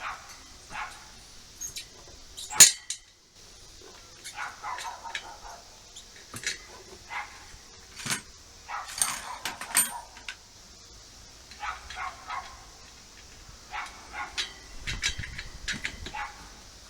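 A dog barking and yelping in short, scattered bursts, with one loud sharp knock about two and a half seconds in.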